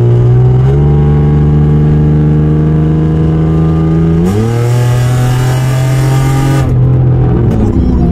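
Hyundai Tiburon V6 with a custom exhaust accelerating hard, heard from inside the cabin. The engine note climbs steadily, drops sharply with an upshift about four seconds in, then climbs again under a harsh rasp that cuts off a couple of seconds later as the throttle eases.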